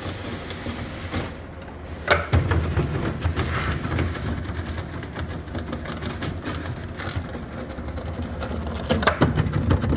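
Washing machine running with a low rumble and rattling clatter, surging louder about two seconds in and again near the end.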